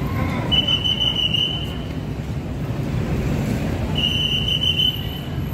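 Busy city street: a steady low rumble of traffic, with two high steady tones of about a second and a half each, the first about half a second in and the second about four seconds in.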